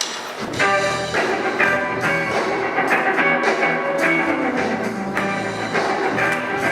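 Instrumental band opening of a gospel worship song, the music starting about half a second in with sustained pitched chords and regular drum strikes.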